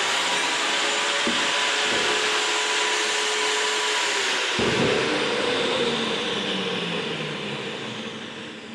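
An electric motor running steadily with a whine and hiss, shifting about halfway through and then winding down, fading over the last few seconds.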